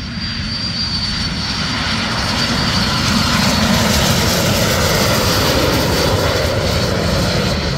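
Airplane passing low overhead. Its engine noise swells to a peak about halfway through, then fades.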